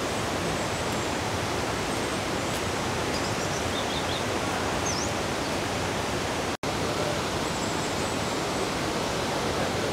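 Steady rushing outdoor background noise with a few faint high bird chirps; it cuts out for an instant about two-thirds through.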